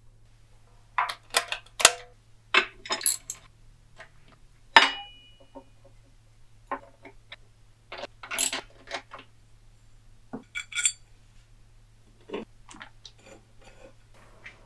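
Hand tools clinking and tapping against metal bandsaw parts during reassembly: a string of sharp clicks and clinks, a few in quick clusters, one about five seconds in leaving a short metallic ring. A faint steady low hum runs underneath.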